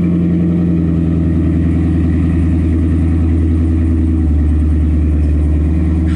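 Chevrolet C7 Corvette V8 with an AWE Touring axle-back exhaust idling loudly and steadily right after a cold start; the idle settles a little lower about four seconds in.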